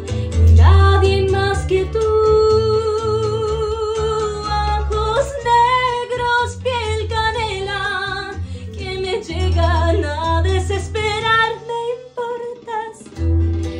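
A woman's voice singing long held, wavering notes with vibrato over a bolero backing track of guitar and bass. The voice stops about twelve seconds in, leaving the accompaniment.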